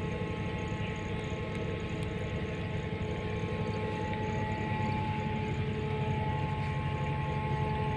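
Catamaran's engine running steadily while under way, heard from on board: a continuous drone with a few held tones over a low rumble, getting slightly louder in the second half.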